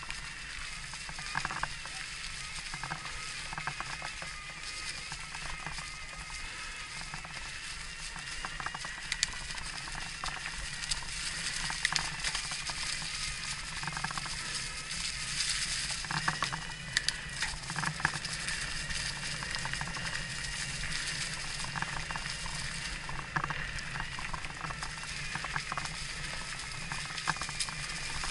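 Electric mountain bike pedalled up a rough, steep trail: tyres crackling over loose stones and dirt, with frequent clicks and rattles from the drivetrain and frame. Over it runs a steady high whine from the assist motor.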